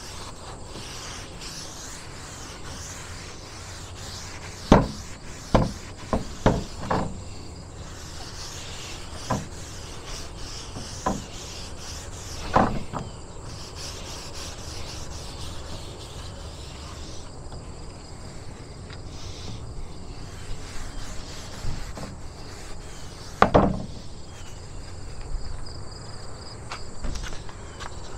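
Rubbing and scattered sharp knocks from handling and staining a wooden shelf board, the loudest a pair of knocks about a third of the way in and another near the end. Insects chirp steadily in the background.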